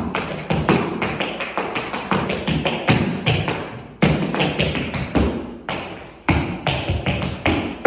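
Tap shoes striking the floor in a fast tap combination, made of steps, spanks, heel drops and stomps: a quick run of sharp taps, several a second. The run breaks off briefly about four seconds in and again a little past six.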